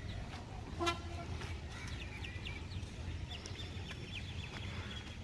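A single brief horn toot about a second in, over a steady low rumble. Faint high chirps come and go after it.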